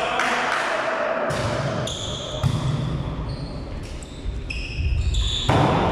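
Volleyball being struck back and forth during a rally in a gymnasium: sharp hits on the ball, the loudest about two and a half seconds in, echoing in the hall.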